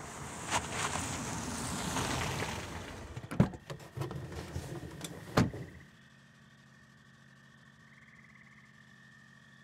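A rush of car noise swells and fades, then a car door thuds twice about two seconds apart with small knocks in between as someone gets in and shuts it. After that, inside the closed car, only a quiet steady low hum with a faint high whine remains.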